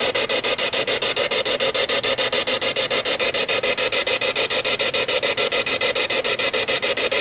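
Ghost-hunting spirit box sweeping through radio stations: a steady stream of radio static chopped into about ten pulses a second.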